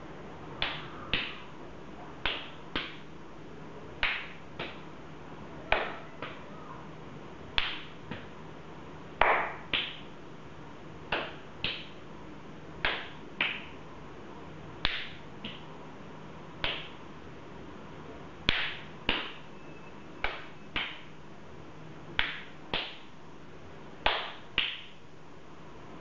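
Open-handed slaps to the face, traded in turn between two people: two sharp smacks about half a second apart, the pair repeating roughly every two seconds at a steady pace.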